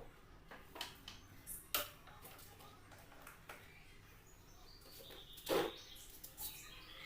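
A few sharp knocks, the loudest about two seconds in and again near the end, with brief high chirps between them.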